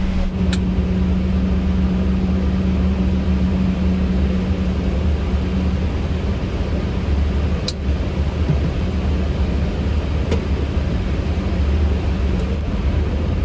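Steady cockpit noise of a Boeing 777 freighter on the ground with its engines running: a low rumble with a hum that drops out about six seconds in, and a few faint clicks.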